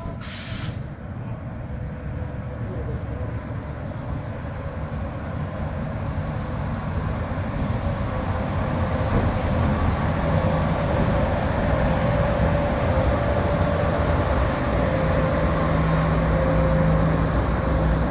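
ČD class 150 electric locomotive running light and approaching at low speed; its steady running hum with a held whine grows louder throughout as it draws near. A faint high-pitched tone comes and goes in the second half.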